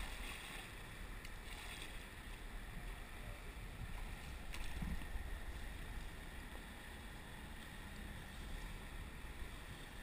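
River water rushing and slapping around an inflatable kayak as it drifts and is paddled through choppy current, with a few light splashes. A low wind rumble on the microphone sits under it.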